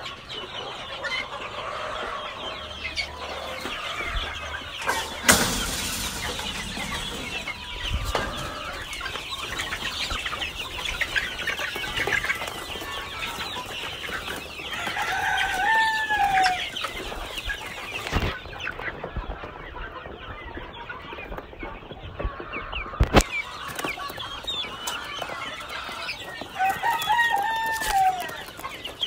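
A flock of young Fayoumi chickens clucking and chattering as they crowd in to feed. Two longer rising-and-falling calls stand out, one around the middle and one near the end, and a few sharp knocks come through.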